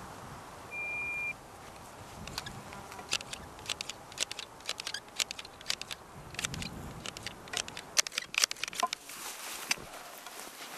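A short high electronic beep about a second in, then irregular sharp clicks and rustling as a deminer works by hand through the grass of a minefield.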